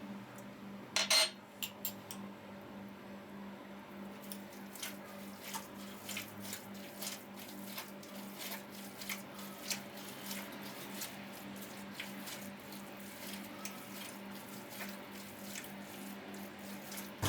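Minced meat and vegetable lahmacun filling being kneaded and mixed by hand in a bowl: soft, irregular wet clicks and squelches. A louder clatter of a dish comes about a second in, over a steady low hum.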